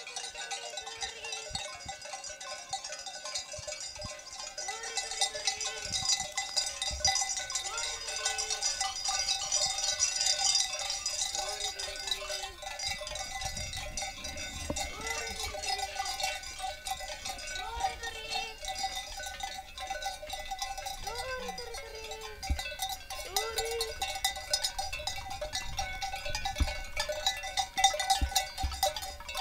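A herd of goats with bells on: bells clanking and clinking throughout, and goats bleating about a dozen times, one call every one to three seconds.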